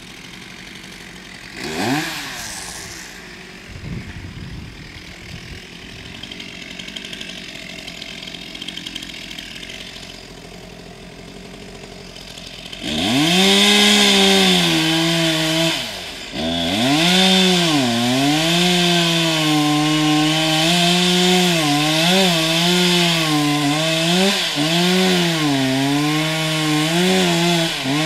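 Chainsaw revving briefly early on, then from about halfway running at full throttle through the trunk of a lodgepole pine, its pitch dipping and wavering as it works under load in the felling cut.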